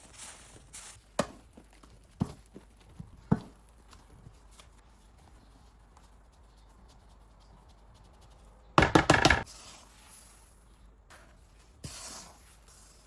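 Kitchen handling sounds: a few single light knocks in the first few seconds, then a short loud clatter of rapid impacts about nine seconds in, and a brief rustle near the end.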